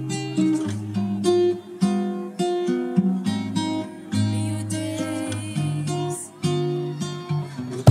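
Background music: acoustic guitar plucked and strummed in a gentle, steady tune.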